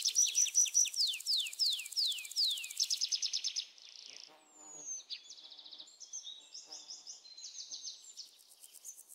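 Birds singing: a loud rapid trill with a quick series of falling whistled notes, then softer, varied chirps and warbles from about four seconds in.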